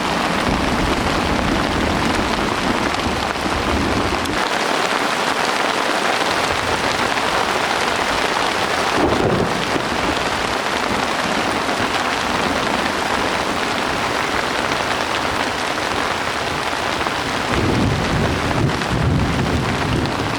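Heavy rain falling steadily in a thunderstorm, with low rumbles of thunder swelling up several times, a longer one near the end.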